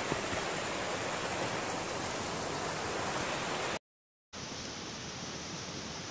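Steady rush of a mountain stream. It drops out for about half a second past the middle, then goes on quieter and duller.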